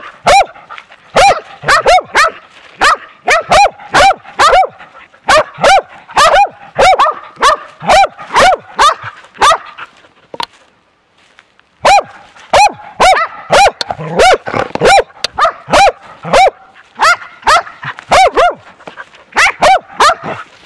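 Hunting dog barking repeatedly at a bear in a bear-baying trial, about two barks a second, picked up very close by a camera on the dog's harness. The barking breaks off for about two seconds midway, then resumes.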